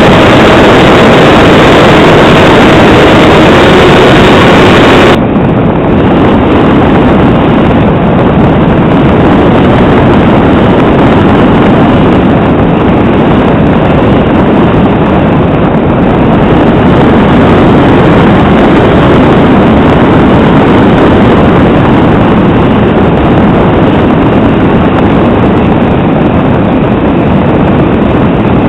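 Loud, overloaded rush of propeller, motor and wind noise picked up by a camera riding on a flying radio-controlled model airplane. About five seconds in the sound turns abruptly duller and stays steady after that.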